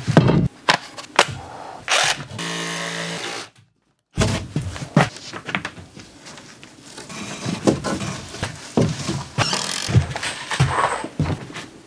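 Electric saw cutting an OSB panel. A steady motor run breaks off about three and a half seconds in, followed by uneven rasping cuts with sharp clicks and knocks.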